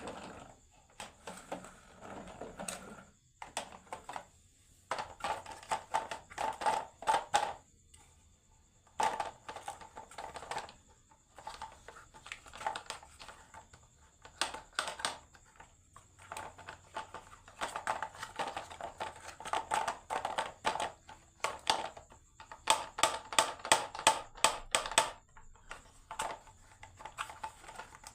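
Marbles clattering down a wooden HABA marble run: bursts of rapid clicks and knocks as they roll and drop between track pieces, coming in several separate runs.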